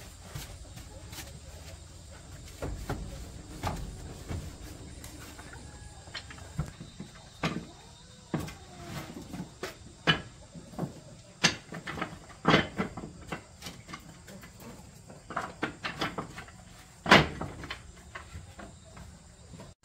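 Irregular sharp knocks and clunks of things being handled and set down, sparse at first and coming more often in the second half, with one louder knock near the end.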